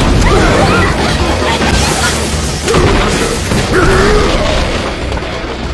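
Anime battle sound effects: heavy booms and crashing impacts over music, with a wavering cry rising and falling about three seconds in.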